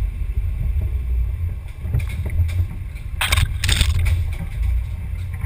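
Onboard sound of an RC scale crawler driving a dirt trail: a steady low rumble from the chassis and drivetrain shaking the body-mounted camera. About three seconds in there are two short crunching scrapes, in quick succession.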